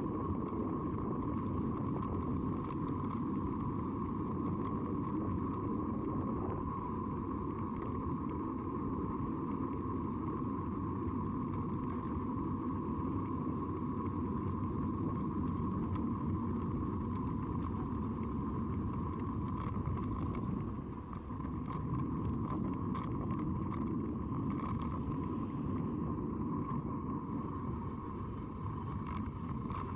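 Steady rush of wind on the camera microphone mixed with tyre noise from a road bicycle rolling on asphalt, with a few faint clicks about twenty seconds in.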